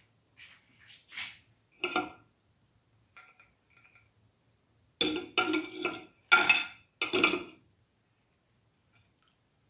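Metal kitchen utensils and dishes clattering: a few light knocks in the first two seconds, then a run of louder, ringing clanks from about five to seven and a half seconds in.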